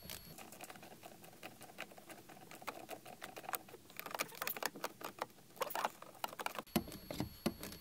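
Irregular small clicks and scrapes of an open-end wrench turning a short mounting screw into the blower motor control module, a little at a time, thickest in the middle of the stretch.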